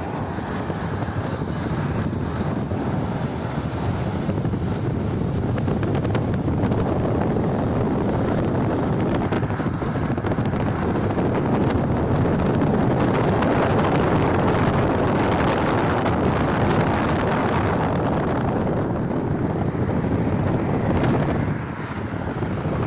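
Steady road and wind noise of a car travelling at highway speed, heard from inside the car, with a brief dip near the end.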